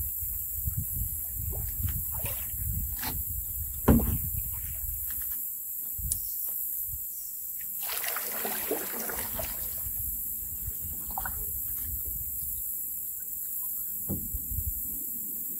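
Handling sounds in a canoe on the water: scattered light clicks and a sharp knock on the hull about four seconds in, then a rush of water lasting nearly two seconds about eight seconds in, over a low steady rumble.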